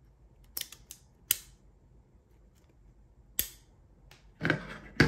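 Small clicks and taps of Glock 43X pistol parts being handled as the recoil spring is fitted into the slide: three separate sharp clicks, then a brief stretch of handling noise ending in a louder click near the end.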